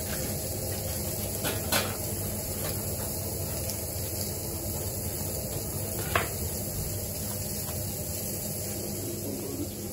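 A bread knife cutting through a loaf on a wooden cutting board, with two sharp knocks, one near the two-second mark and one about six seconds in, over steady kitchen background noise.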